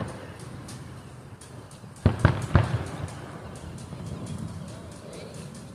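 Aerial fireworks shells bursting at a distance. There is one boom at the start, then three booms in quick succession about two seconds in, with faint crackling in between.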